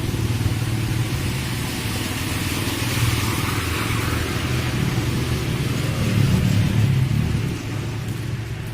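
A motor vehicle engine running steadily under a broad hiss, easing off near the end.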